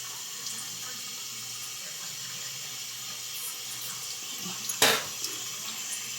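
Water running steadily from a tap into a sink, with one brief sharp knock a little under five seconds in.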